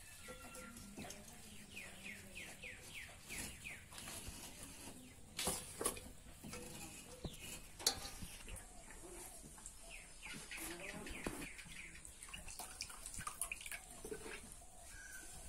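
A bird calling twice in a run of quick, falling chirps. Under it come the faint wet sounds of shredded banana flower being squeezed by hand, with dripping water and two sharp knocks about halfway through.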